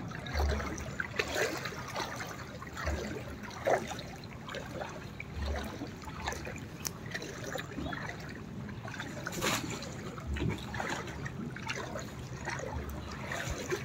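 Muddy floodwater sloshing and splashing in irregular bursts as someone moves through it, with a few low bumps.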